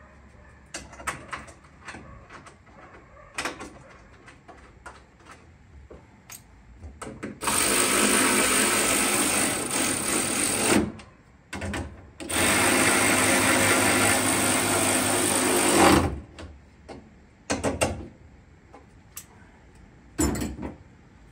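Handheld power drill running on the steel fuel-cell mounting plates in the Jeep's tub, in two long steady runs of about three and four seconds with a short pause between them. Light metallic clicks and knocks of parts being handled come before and after.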